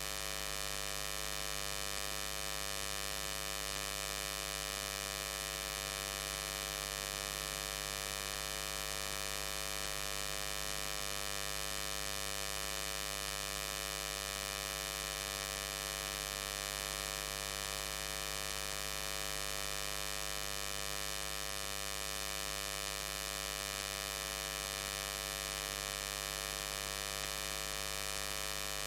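Steady electrical hum and buzz with many evenly spaced overtones, unchanging throughout. It is interference noise on the recording, which the uploader puts down to the inverter powering the lights.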